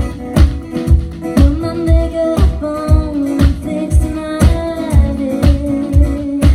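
A live country-pop band playing: acoustic guitars strummed over a steady kick-drum beat of about two beats a second. A woman's singing voice comes in about a second and a half in.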